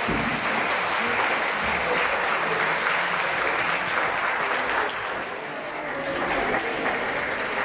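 Crowd applauding steadily, with faint music underneath.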